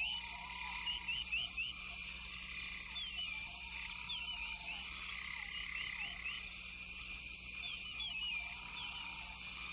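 A chorus of frogs: many short, repeated chirps over a steady high trill.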